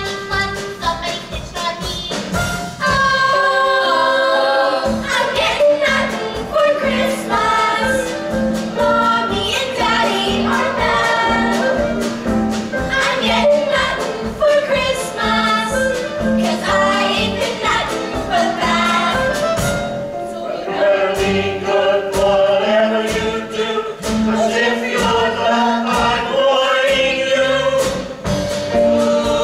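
A large group of young voices singing a Christmas song together over an accompaniment with a steady beat.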